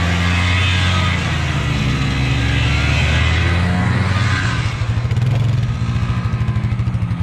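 An engine running with a steady low hum; about four and a half seconds in it turns to a fast, even pulsing.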